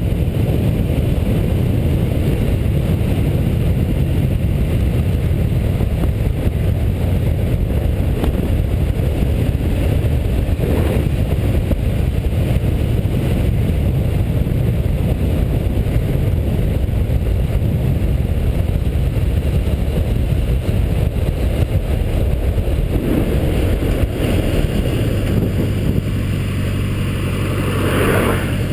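Motorcycle on the move: steady engine noise mixed with wind rushing over the microphone. Toward the end a steadier engine hum comes through more plainly.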